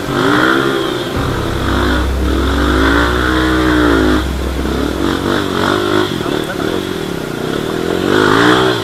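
Dirt bike engine revving up and down over and over under load as the bike is towed on a strap up a steep muddy climb.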